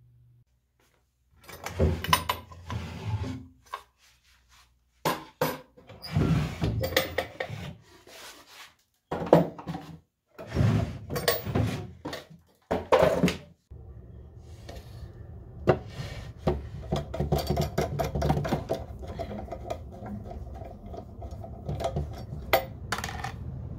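Wooden drawers of an antique washstand being handled and pulled out: bursts of wood knocking, sliding and clattering, broken by brief silences. Near the end, lighter rubbing and small clicks as hands work at the inside of a drawer.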